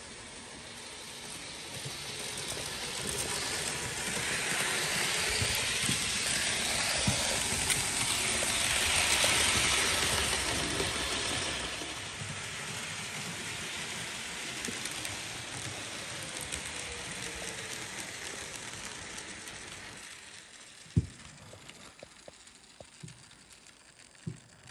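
Model train rolling along the layout's track: a hissing, rumbling run noise that grows as it comes closer, is loudest about ten seconds in, then slowly fades away. Two sharp clicks near the end.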